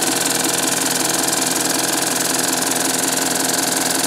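Baby Lock Triumph serger running in threading mode: a loud, steady motor hum under an even hiss of air from its air threading system.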